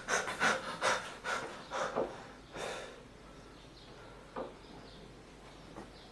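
A person panting hard, about four quick breaths a second for the first two and a half seconds, then slowing to one or two faint breaths.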